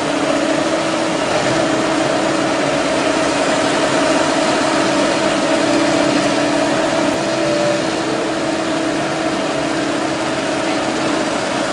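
Excavator's diesel engine running steadily, with a constant hum.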